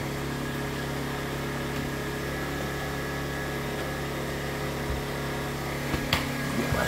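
A steady mechanical hum, an even low drone from a running machine, with a faint click near the end.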